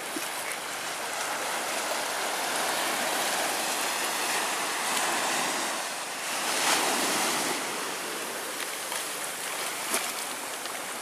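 Small surf waves washing in over wet sand in ankle-deep water, a steady hiss that swells past the middle, with one short knock near the end.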